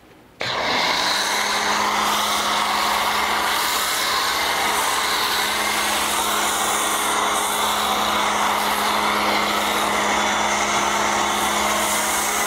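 AR Blue Clean electric pressure washer running with a foam cannon on its gun, spraying shampoo foam onto a car. It starts abruptly about half a second in, then holds a steady motor hum under the hiss of the spray.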